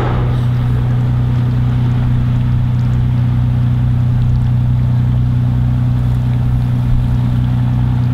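Boat engine running with a steady low drone and a faint throb underneath.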